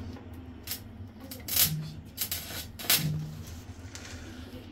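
Stick (arc) welding on a steel window frame: the arc crackles and sizzles, with sharp pops about a second and a half in and again about three seconds in, over a steady low hum.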